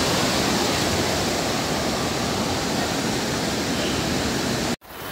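Steady rush of floodwater pouring and splashing, cutting off abruptly near the end.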